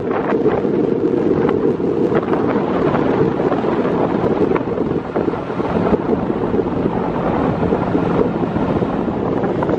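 Wind buffeting the microphone on an open ferry deck: a steady, loud rushing noise, low and heavy, with no break.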